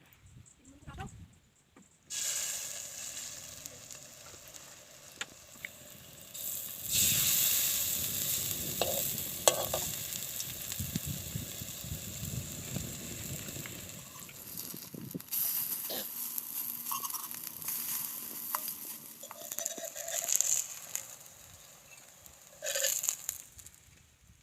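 Okoy batter of grated green papaya, flour and egg sizzling as it fries in hot oil. The sizzle starts suddenly about two seconds in and swells several more times, with a few light clicks of a utensil.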